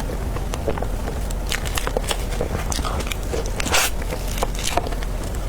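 Eating sounds as dragon fruit cake is chewed: a string of short mouth clicks and smacks, with a louder one near the four-second mark.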